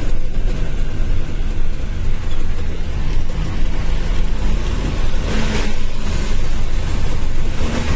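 Truck engine running and tyre noise on a wet road, heard inside the cab as a steady low rumble. A brief rise of hiss comes about five seconds in.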